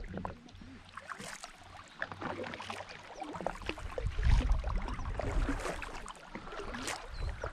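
Kayak paddling on calm water: the paddle blades dipping and pulling through the water with small splashes and drips, louder from about four seconds in.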